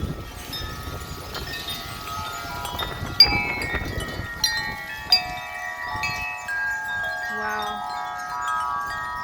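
A set of wind chimes ringing hard in strong gusty wind, the tubes struck again and again so that many overlapping tones ring on, with the sharpest strike about three seconds in. Wind rushes through the first few seconds.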